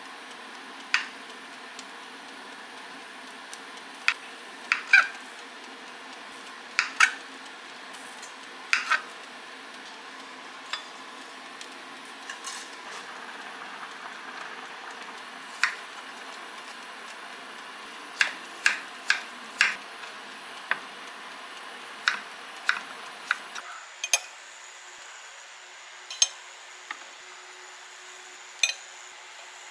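Kitchen handling: sharp taps of a chef's knife striking a wooden cutting board as a narutomaki fish cake roll is sliced, then clinks of the slices and plate being set down on ceramic and stone, over a steady low background hum. The knocks come singly and in short pairs, with no regular rhythm.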